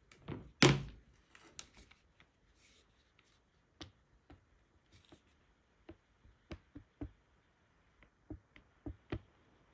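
A knock as the airgun is lifted, then small irregular clicks, one or two a second, from the AEA HP Max's folding stock being worked at its hinge: play in the folding-stock joint.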